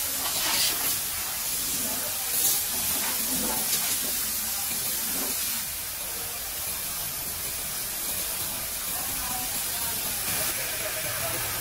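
Compressed-air spray gun hissing steadily as it sprays glaze onto an unfired ceramic toilet, a bit louder in a few short spells near the start.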